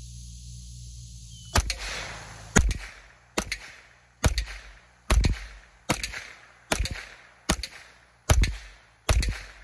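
Winchester Wildcat semi-automatic .22 LR rifle fired ten times in steady succession, about one shot every 0.8 seconds, each sharp crack trailing off briefly.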